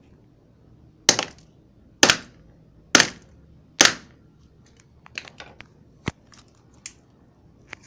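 Four hard blows about a second apart, followed by lighter clicks and cracks: a cell phone being smashed.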